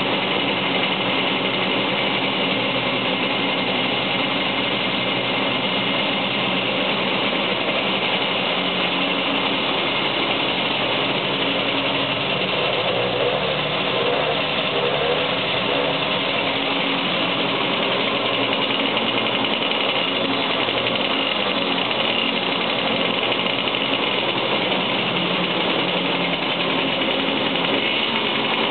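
Small motorcycle and moped engines idling steadily in an enclosed garage, an even, unchanging running sound.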